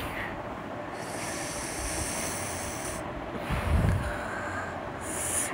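Wind buffeting the microphone, with a stronger gust about three and a half seconds in.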